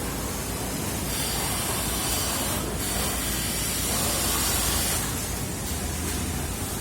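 Steady hissing noise over a low hum, the hiss growing louder about a second in and easing off about five seconds in, with a brief dip near the middle.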